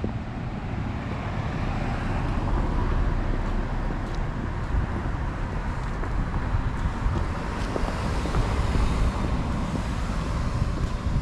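Road traffic going by on a street, a steady wash of car noise that swells as vehicles pass, over a low rumble.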